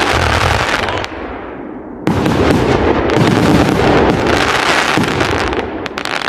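1088-shot firework cake firing a dense barrage of shots and bursts. It eases off about a second in, then comes back suddenly and loud at about two seconds, and tapers near the end.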